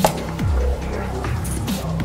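Electronic background music with a heavy, repeating bass beat, and a single sharp knock right at the start.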